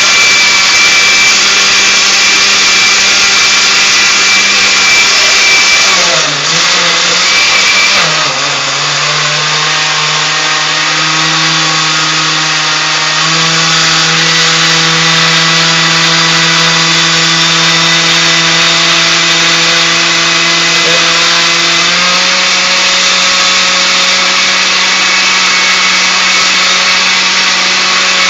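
Countertop blender motor running continuously at high speed, mixing milk, gelatin and cream cheese. About six seconds in its pitch drops and wavers, then settles lower, as the motor slows under the thicker load of the cream cheese. It picks back up about 22 seconds in.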